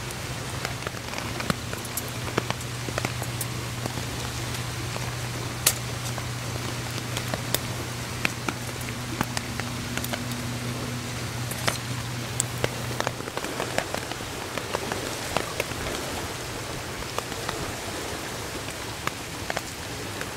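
Rain pattering steadily on a silnylon rain-poncho tarp overhead, with many scattered sharp ticks of drops. A low steady hum runs underneath and stops about two-thirds of the way through.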